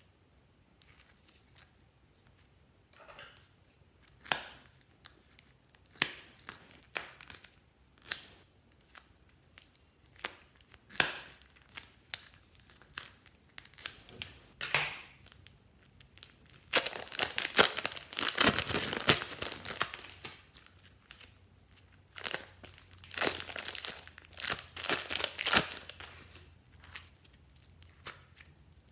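Crinkling, crackling and tearing sounds close to the microphone: scattered sharp snaps, with a long dense stretch of crinkling in the middle and another shorter one near the end.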